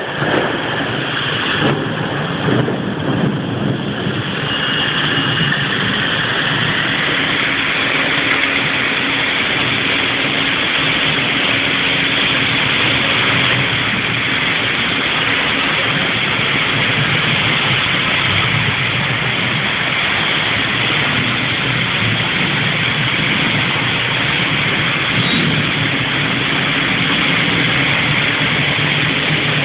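Heavy rain pouring down in a dense, even hiss, with a faint steady hum underneath.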